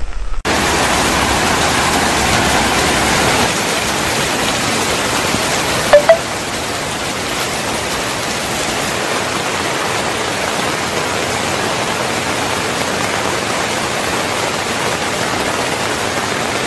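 Rain falling steadily, an even hiss, with one brief louder sound about six seconds in.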